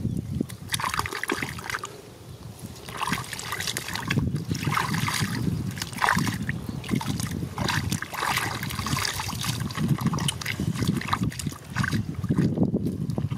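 Muddy water sloshing and splashing in irregular bursts as a plastic basket is scooped and dragged through a shallow mud hole.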